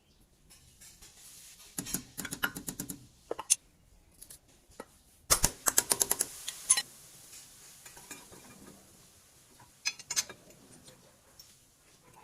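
Metal tools and parts clinking and rattling during brake rotor work, in three bursts of sharp clicks, the loudest about five seconds in.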